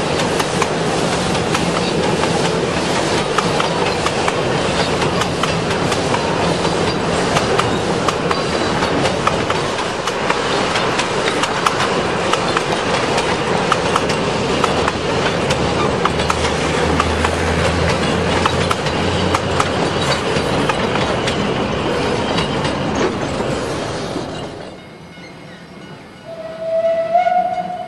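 Narrow-gauge heritage passenger carriages rolling steadily across a timber trestle bridge, a continuous clatter of wheels on rail that stops abruptly about 24 seconds in. Near the end a short pitched whistle sounds, the steam locomotive's whistle.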